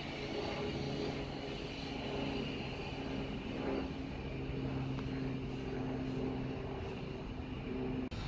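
Class 707 electric multiple unit pulling away from the station, its traction motors giving a steady hum of several low tones. The sound cuts off abruptly near the end.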